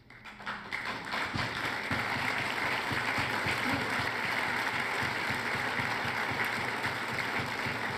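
A large audience applauding, swelling over the first second or two and then holding steady.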